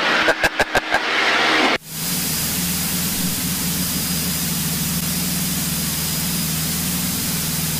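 Single-engine Cessna's piston engine and propeller at full takeoff power as the plane rolls and lifts off on a touch-and-go, heard as a steady drone from the cockpit. The sound is choppy for the first two seconds, then runs steady.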